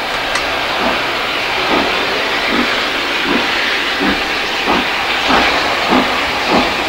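Southern Railway N15 'King Arthur' class steam locomotive 30777 Sir Lamiel approaching under steam: a steady hiss of steam with regular exhaust chuffs about every two-thirds of a second.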